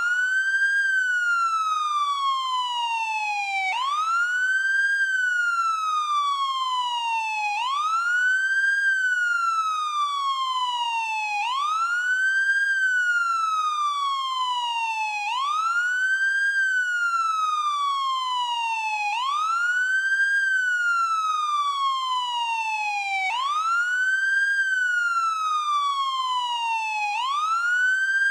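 American police car siren on its wail setting: the pitch sweeps up quickly and slides slowly back down, over and over, about every four seconds.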